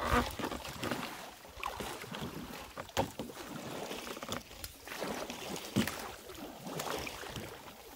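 Splashing and lapping water as a wooden paddle strokes beside a bamboo raft and a swimmer moves alongside, with a few sharp knocks, the clearest about three seconds in.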